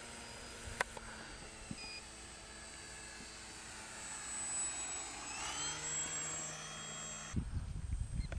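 Electric motor and propeller of an RC model biplane giving a steady whine. It grows louder and shifts in pitch as the plane flies close by, about four to six seconds in. Near the end, wind buffets the microphone with a low rumble.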